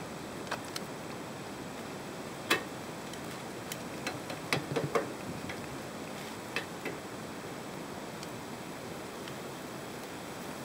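Metal kitchen tongs clicking against each other and the foil-lined steel pan while lifting cooked beef ribs. Scattered sharp clicks over a steady hiss, the loudest about two and a half seconds in and a quick cluster around five seconds.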